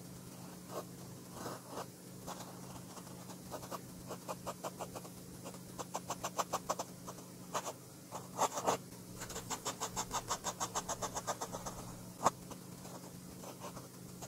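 Flex-nib fountain pen scratching across sketchbook paper in quick, even hatching strokes, about four or five a second, with one sharp click about twelve seconds in.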